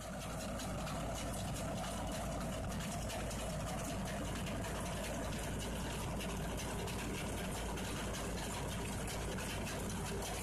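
Steady running noise of an old truck-mounted mud rotary drill rig, its engine and drive machinery working at an even pace.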